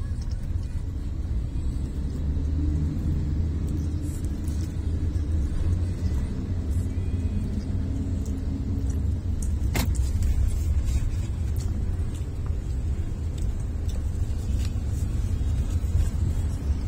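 Steady low rumble of a car, heard from inside the cabin, with a single sharp click about ten seconds in.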